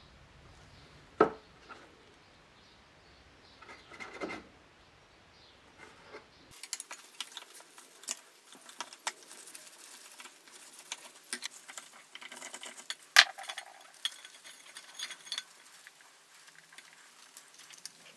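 Hand tools working on a rusty small tiller engine as it is stripped down: a busy run of light metallic clicks, ticks and clinks, with one sharp click about two thirds of the way through. A couple of isolated knocks come first.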